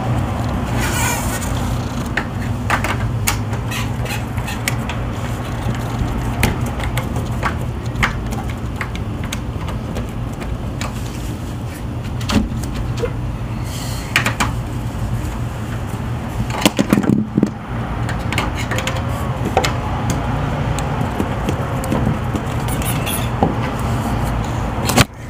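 Scattered clicks and knocks from hands and a screwdriver working on the lower corner of a sliding patio screen door in its track, adjusting the wheel tension screw, over a steady low hum.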